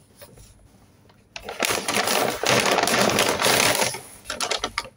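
Paper takeout bag rustling and crinkling loudly as a hand rummages inside it, starting about a second and a half in and dying away near the end.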